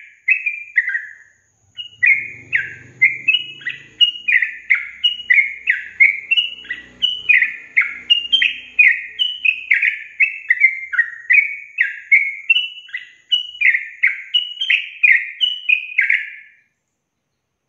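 Yellow-vented bulbul (trucukan) singing: a fast run of short notes, each falling in pitch, about two a second, with a brief pause just after the start and stopping near the end.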